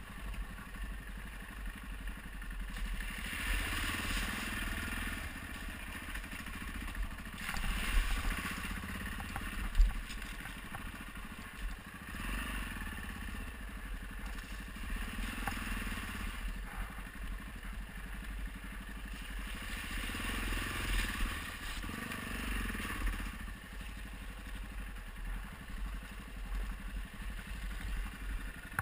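Adventure motorcycle engine running as it picks along a rocky trail, its note rising and falling in several swells, with tyres crunching and the bike clattering over loose rock. A single sharp knock comes about ten seconds in.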